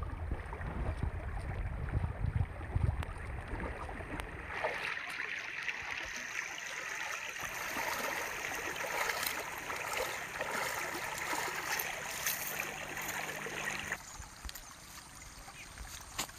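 Shallow stream water rushing and splashing as a man wades through it, after a few seconds of low rumble on the microphone. The water noise drops away about two seconds before the end.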